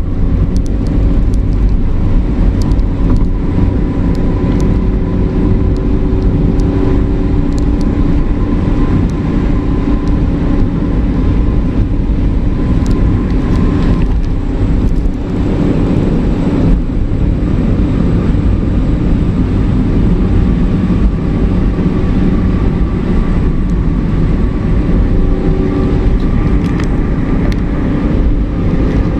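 Truck engine running steadily at cruising speed with tyre and road noise, heard from inside the cab, with a few faint clicks along the way.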